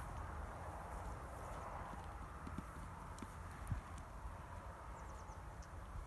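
A few faint, scattered thuds of cattle hooves stepping on snowy ground, the last one the loudest, over a low steady rumble.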